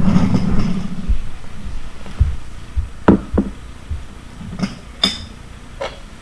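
Ceramic dishes handled and set down on a wooden tabletop: rustling at first, then a few separate knocks and a short ringing clink about five seconds in.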